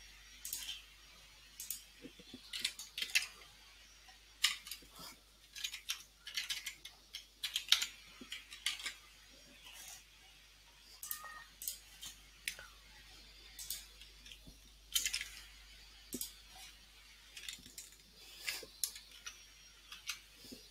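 Typing on a computer keyboard: irregular runs of quick keystrokes broken by short pauses.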